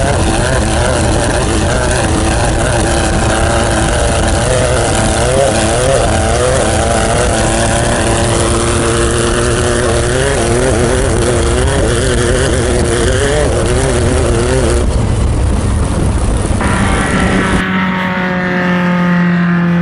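Off-road race truck engine running hard over loud rushing road and wind noise, its pitch rising and falling repeatedly as the throttle is worked. Near the end it cuts abruptly to a steady, even engine drone.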